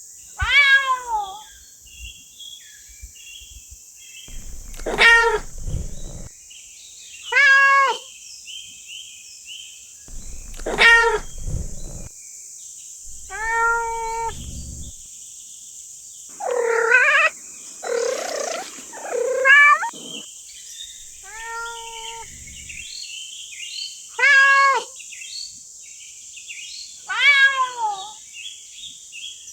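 Domestic cat meowing over and over: about a dozen separate drawn-out meows, most falling in pitch, a couple of seconds apart, over a steady high hiss.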